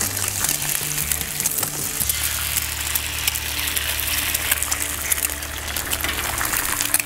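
Eggs frying in bacon grease on a hot Blackstone flat-top griddle: a steady crackling sizzle.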